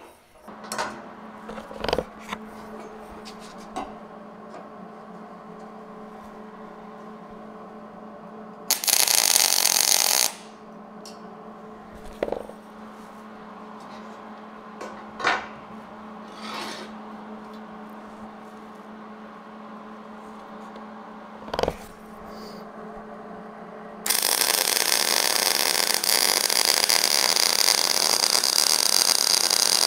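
Arc welding on steel conduit and angle iron: a short burst of arc crackle about nine seconds in, then a longer steady weld of about six seconds near the end. Between the welds, a steady hum and scattered light clicks and taps of metal parts being handled.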